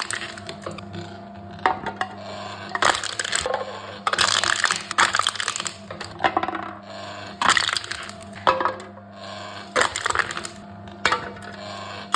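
Aluminium cans being crushed one after another by a crushing machine: a run of crackling, crunching bursts about once a second, some drawn out for nearly a second, over a steady low hum.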